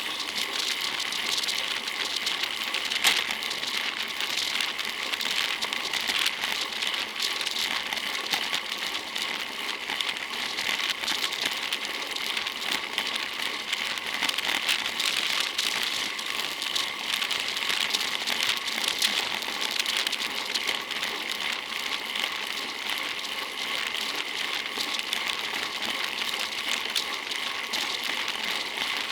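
Steady running noise of a road bicycle in motion, with tyre hiss and drivetrain whir and a light, constant rattle.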